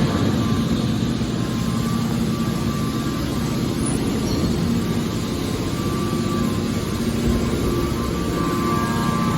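Hydraulic aluminum can baler's power unit running, a steady motor-and-pump drone.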